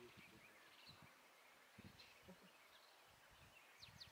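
Near silence: faint open-air ambience with a few faint bird chirps, a quick pair of them near the end.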